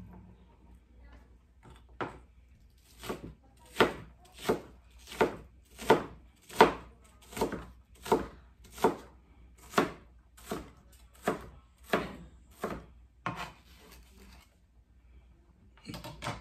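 Kitchen knife chopping an onion on a cutting board: a steady run of about seventeen knocks, roughly three every two seconds, that stops a little past the middle, with a couple of faint taps near the end.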